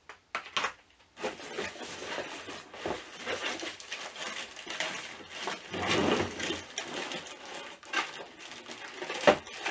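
Cardboard box and insert being pulled open, then a large plastic bag rustling and crinkling as it is lifted out of the box, with a couple of clicks at the start and a sharp knock near the end.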